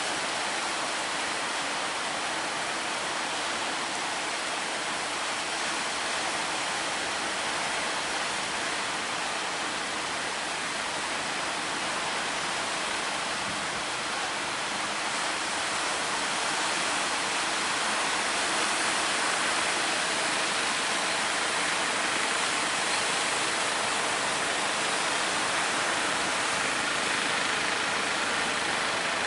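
Steady rush of big waves breaking at a sea inlet. It is even and unbroken, growing a little louder about halfway through.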